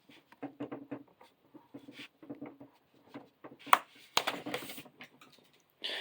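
Knife cutting through cardboard packaging in short scraping strokes, then a couple of sharp cracks and a rustle as the box is worked open.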